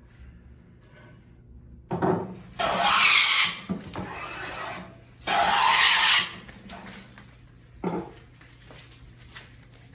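Two long scraping strokes of a hand tool across wood, each about a second long, with a short knock before the first and another near the end.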